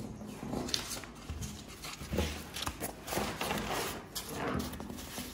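A large sheet of stiff chart paper rustling and crackling irregularly as it is handled and moved about over a table.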